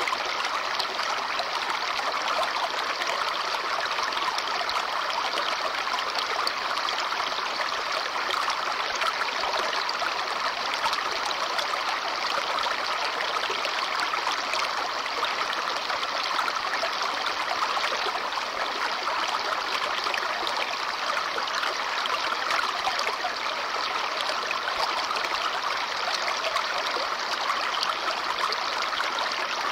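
Babbling brook: water running and trickling steadily over stones, a continuous even burble.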